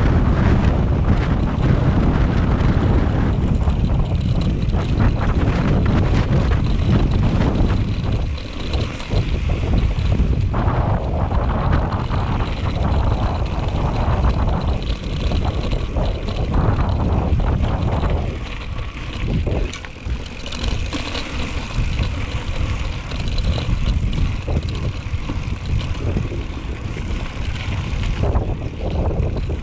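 Wind buffeting the action camera's microphone during a mountain-bike ride over rough trail. The wind sits under a running clatter of knocks and rattles from the bike and tyres.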